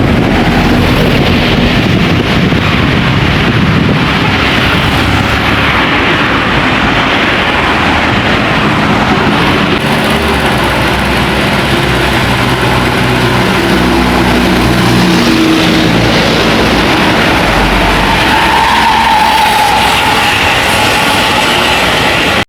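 Tour and intercity buses driving past close by, a loud, continuous rumble of diesel engines and tyre noise that swells and fades as each one goes by.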